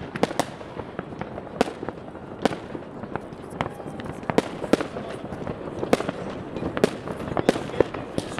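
New Year's fireworks and firecrackers going off all over a city: irregular sharp bangs and pops at different distances, about one or two a second, over a continuous rumble of more distant explosions.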